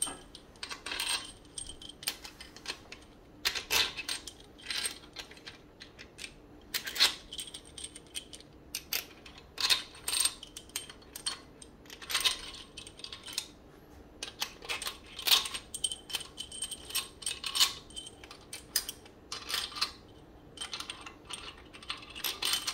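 Loose steel bolts clinking together in a handful and tapping against the crankshaft bearing caps of an upturned BMW M54 engine block as they are set into their holes: irregular sharp metallic clicks and jingles.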